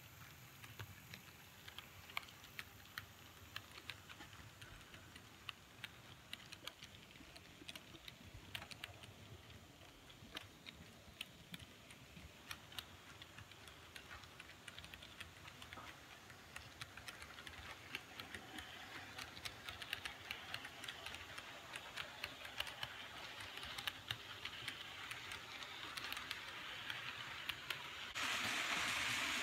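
Model train running on sectional track: a quiet stream of light, irregular clicks over a faint hiss. The hiss grows slowly louder and jumps up suddenly near the end.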